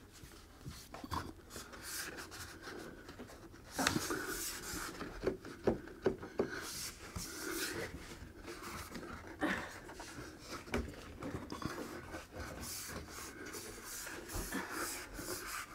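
Hands pressing and sliding a long glued board against a wall: irregular light knocks and rubbing, with someone breathing hard while holding it overhead.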